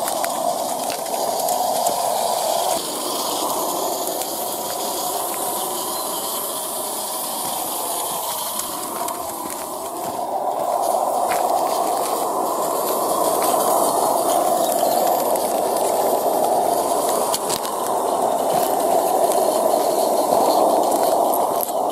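Gas-fired live-steam G-scale model Mallet locomotive (Regner RhB G 2/3+2/2) running under steam: a steady hiss of steam and exhaust, with the wheels running on the track.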